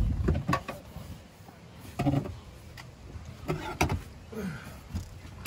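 Rear seat back of a Ford Crown Victoria being wrestled out of the car: a series of dull knocks and thumps as it bumps against the cabin, with the loudest knock at the end.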